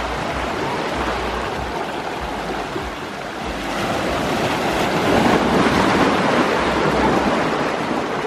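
Steady rushing water, growing a little louder about halfway through, with wind buffeting the microphone.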